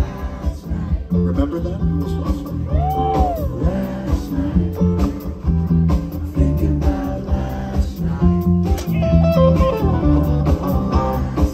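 Live band playing an instrumental passage: a lead guitar line with bent notes over bass and drums.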